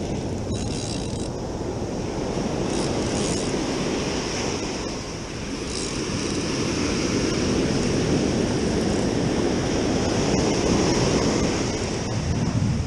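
Ocean surf breaking and washing up a sandy beach, swelling and easing over several seconds, with wind buffeting the microphone.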